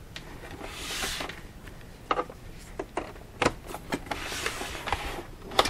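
Hands moving and turning a plastic thermal label printer on a wooden bench: rubbing and scraping, with several sharp clicks, the loudest near the end.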